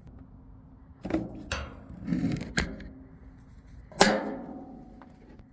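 Metal tools knocking and clanking as they are handled, with a rattling cluster of knocks and then one loud clank about four seconds in that rings briefly.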